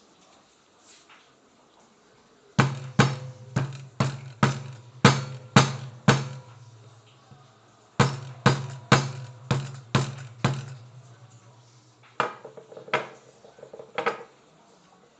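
Granite pestle knocking down on a dried mango seed's hard husk against a stone countertop to crack the husk open: three runs of sharp knocks about two a second, roughly eight, then six, then three.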